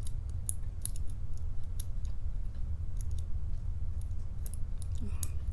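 Lock pick clicking against the pin tumblers inside an Assa cabinet lock while feeling for the back pin under tension: scattered, irregular light clicks.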